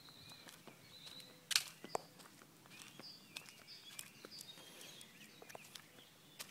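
Small birds chirping in the background, many short calls throughout, with scattered soft footsteps on grass and handling clicks; a sharper click about one and a half seconds in is the loudest sound.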